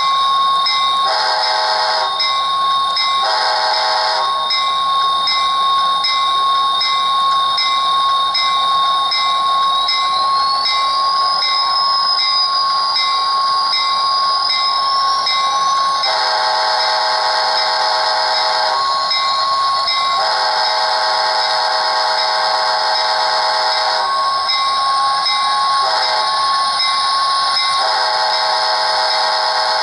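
Sound decoder of an HO-scale Metra MP36 model diesel locomotive playing its horn through the model's small speaker. It gives two short blasts in the first few seconds, then from about halfway a long, long, short, long sequence, the grade-crossing signal. Under the horn runs a steady high whine that rises in pitch about a third of the way in.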